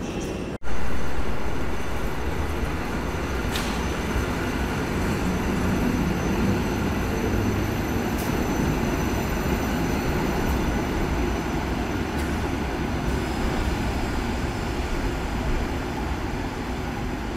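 Polregio EN57 electric multiple unit at a platform under a station train shed: a steady rumble with thin, steady high whines over it.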